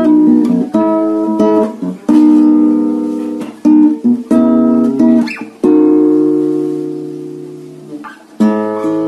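Yamaha C80 nylon-string classical guitar played in chords, each chord struck sharply and left to ring. Several chords follow quickly in the first half, then one chord rings out and fades for nearly three seconds before a fresh chord near the end.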